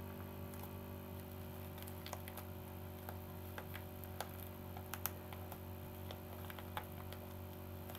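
Faint, irregular clicks and crinkles of a parcel's packaging being picked at and pulled open by hand, over a steady low hum.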